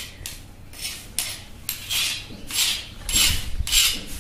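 Steel spoon scraping ground bhang paste across a flat grinding board in short rhythmic strokes, about two a second.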